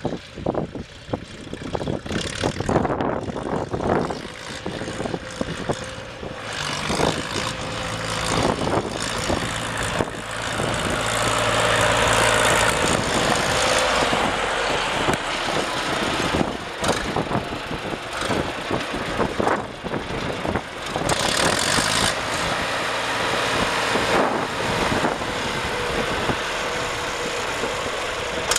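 John Deere 301W industrial tractor's three-cylinder gas engine running as the tractor drives along, growing louder over the first ten seconds or so as it comes close, then running steadily nearby.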